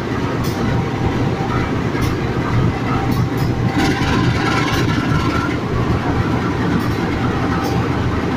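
Two GE CC201 diesel-electric locomotives running under power as they pull a passenger train away from a station stop, a steady low engine drone. Sharp clicks come now and then from the wheels on the track.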